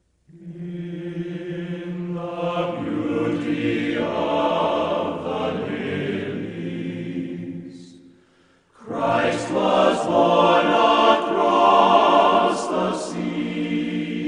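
Choir singing slowly in two long phrases, with a short break about eight seconds in.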